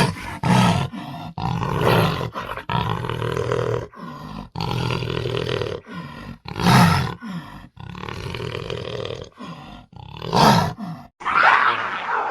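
Black panther (a melanistic big cat) calling in a string of roars and growls: short loud roars about half a second in, near two seconds, near seven seconds and again near the end, with longer, lower rasping growls between them.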